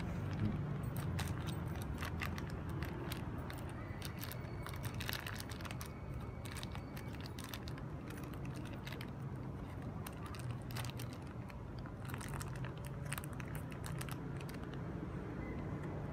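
Steady low background hum with many scattered light clicks and ticks; no meowing.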